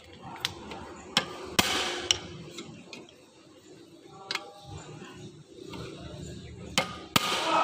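A hammer striking a hand impact driver to tighten the screws of a car alternator's housing: a series of sharp metallic knocks, two of them louder and ringing, about a second and a half in and near the end.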